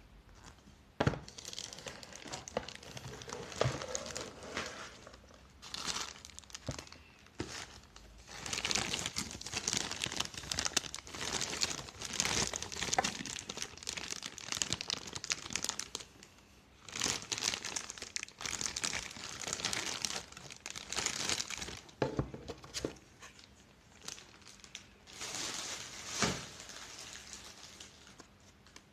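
Packaging crinkling in irregular bursts as it is handled, with a few sharp knocks in between.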